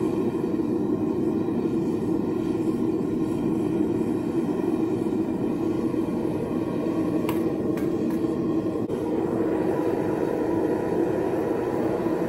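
Homemade metal-melting foundry furnace running hot with a steady rushing noise from its burner. Around the middle come a few faint clinks as pieces of scrap aluminum are dropped into the crucible with tongs.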